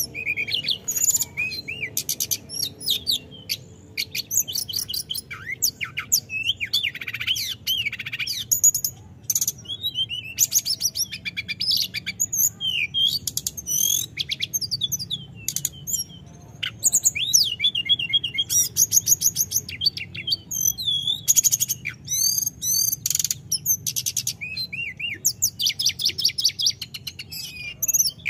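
Caged tledekan gunung (a blue flycatcher) singing almost without pause: a long, varied song of fast rattling trills mixed with short gliding whistled notes.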